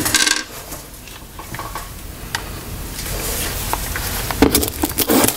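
Rustling and handling noises with scattered light clicks and knocks as tools are picked up and set down on a kitchen counter, with a louder clatter near the end. No drill motor is running.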